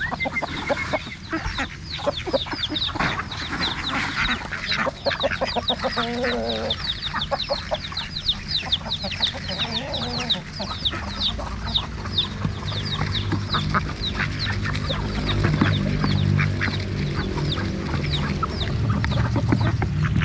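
A flock of ducks feeding on unhusked rice grains from a hand and off the ground, with a fast, steady patter of short clicks from their bills and quacking.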